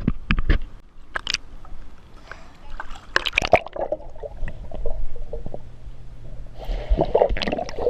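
Water sloshing and splashing close to the microphone, with irregular sharp splashes.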